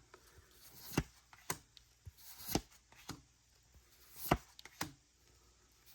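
Pokémon trading cards handled as a pack is flipped through: a few sharp card taps and clicks with brief swishes of cards sliding against each other.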